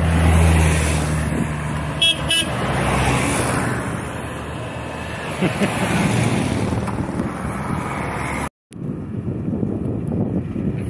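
A Volkswagen T3 camper van's engine humming loudly as it drives past close by, followed by more convoy vehicles going by. A horn gives two short toots about two seconds in.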